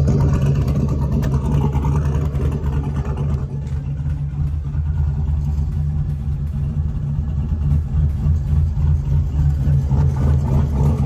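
LS-swapped V8 on Holley Terminator X EFI idling with an uneven, choppy lope, the idle chop table swinging ignition timing back and forth about 20 degrees around a 750 RPM target.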